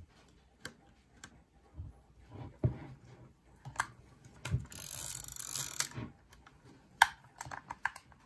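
Mamiya C330 Pro twin-lens reflex camera being worked by hand: a series of small mechanical clicks, then a ratcheting run lasting about a second midway. About seven seconds in comes one sharp, louder click, the leaf shutter of the Mamiya-Sekor 55mm lens releasing, followed by a few lighter clicks.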